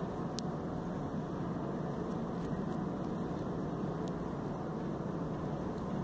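Steady background hum of city noise with no distinct events, and a couple of faint ticks.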